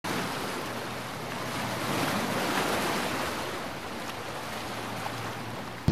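Sea waves washing on a shore: a steady rushing hiss that swells about two seconds in and then eases off a little.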